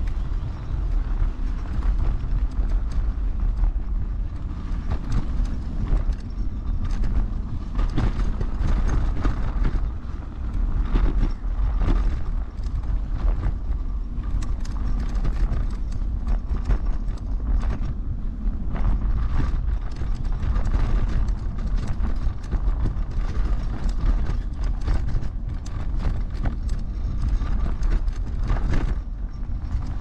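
Heavy RS New Vision electric scooter riding over a rough forest track: a steady low rumble with frequent knocks and rattles as it goes over bumps.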